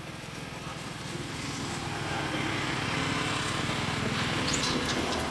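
A small engine running steadily with a fast even pulse, growing louder over the first couple of seconds and then holding.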